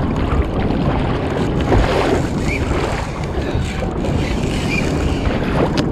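Steady wind noise on the microphone over sea water splashing around a kayak in breaking surf.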